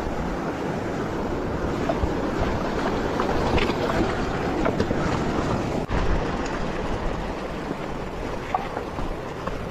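Mountain bike rolling over a rocky riverbed and through a shallow stream: a steady rush of tyre, water and wind noise on a handlebar-mounted camera microphone, with scattered clicks and rattles from stones and the bike. The sound breaks off sharply for a moment about six seconds in.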